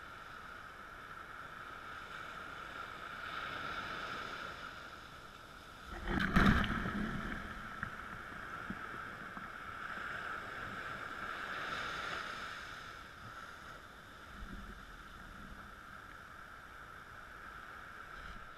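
Small sea waves breaking and washing up a sand beach, the surge swelling and fading every several seconds. About six seconds in, a wave splashes right up to the microphone, the loudest moment.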